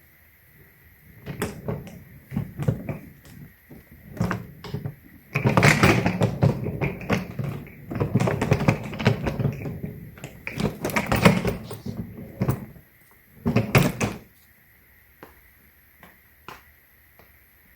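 Handling noise from hardshell suitcases: a series of knocks and clicks, then several seconds of dense rustling and scraping with knocks, ending in a short burst about fourteen seconds in.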